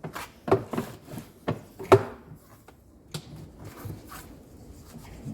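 Knocks and clatter of hand work on a front-load washing machine's outer tub as it is taken apart: about six sharp knocks in the first two seconds, then a few fainter taps.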